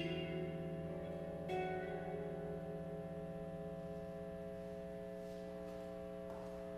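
Electric guitar played slowly: a note picked at the start and another about a second and a half in, then the notes left ringing and slowly fading with long reverb. A few faint taps near the end.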